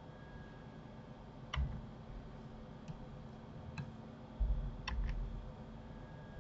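Scattered computer mouse and keyboard clicks, about half a dozen sharp clicks, with a couple of low thumps about a second and a half and four and a half seconds in, over a faint steady hum.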